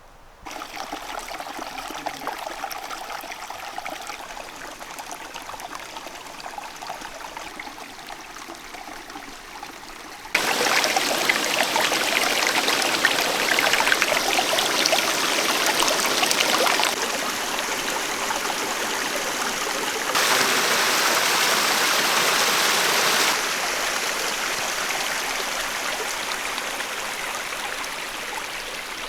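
Fast-flowing water rushing and splashing steadily. Its level steps up and down abruptly several times, loudest from about a third of the way in.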